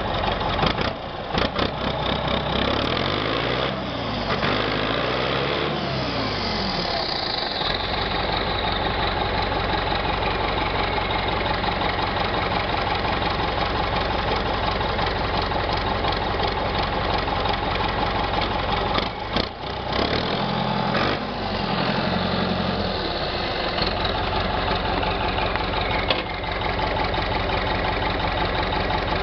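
Ford 7610 tractor's diesel engine running, heard close to its short straight exhaust stack: steady idle, with the engine revved up and down a few times in the first several seconds and again briefly around twenty seconds in.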